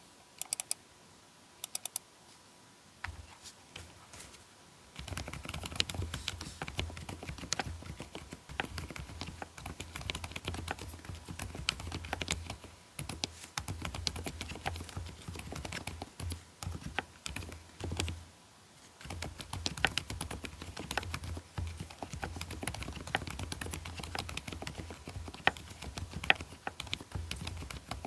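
Mechanical keyboard with hand-lubricated Outemu Peach v1 silent linear switches being typed on. A few isolated keystrokes come first, then steady fast typing from about five seconds in, with a brief pause about two-thirds of the way through.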